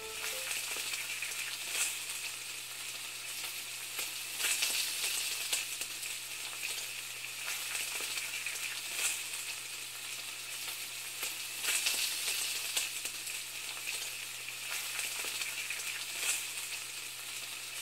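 Food sizzling and crackling as it fries in a hot pan, a steady hiss with irregular pops, over a low steady hum.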